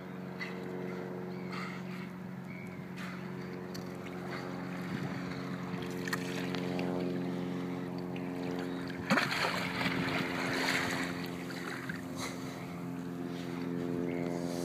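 Motorboat engine running steadily nearby with an even drone. About nine seconds in, a louder rushing burst lasts around two seconds.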